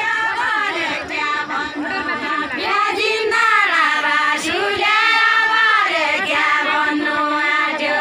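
Group of women singing a Deuda folk song together, unaccompanied, in one melody line of long held notes that glide between pitches.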